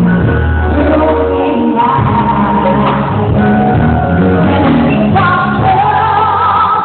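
A singer holding long, wavering notes over a rock band's backing of bass, guitar and drums.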